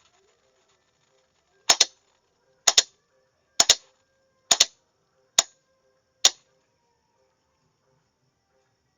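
Morse signalling key clicking as characters are sent by hand. There are six sharp strokes about a second apart, most of them a close double click of press and release.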